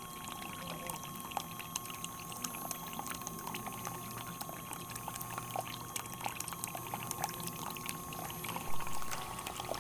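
Water pouring from two small pipe outlets into a miniature cement tank and spilling over its outlet, with many small splashes over a steady faint whine from the small electric pumps feeding it. One louder splash near the end.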